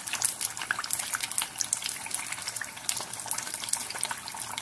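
Hot oil sizzling and crackling steadily around lumpia (Filipino spring rolls) deep-frying in a pan, with many small pops.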